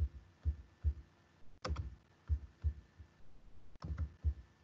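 Soft clicks and low thumps of a computer mouse being worked at a desk, about two a second and unevenly spaced, with a couple of sharper clicks among them.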